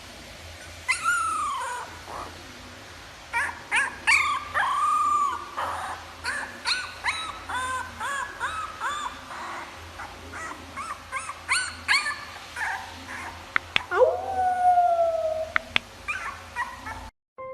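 A dog howling: a long drawn-out howl about a second in and another near the end, with a run of short yipping calls in between. The sound cuts off suddenly just before the end.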